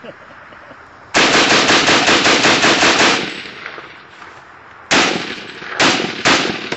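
Browning M1919A4 machine gun firing in rapid strings, about seven shots a second: one long burst of about two seconds with echo trailing off behind it, then three shorter bursts close together near the end.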